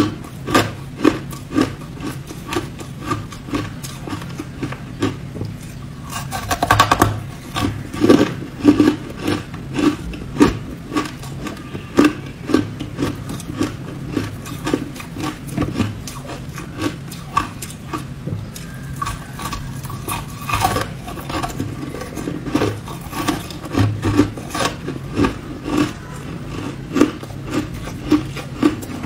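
Hard ice being chewed and crunched between the teeth, one crunch about every half second in a steady chewing rhythm, with a louder, denser bite about seven seconds in.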